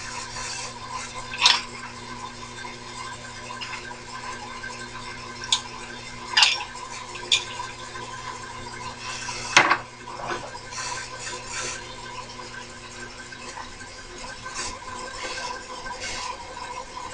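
Sharp metal-on-metal clinks, about five in the first ten seconds, over the steady hum of a running milling machine's motor. The hum's low part fades away late on.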